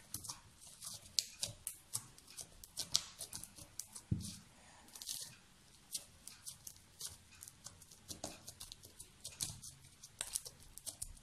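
Fluffy borax-and-glue slime being pressed and kneaded by hand, giving off many small, irregular sticky crackles and pops.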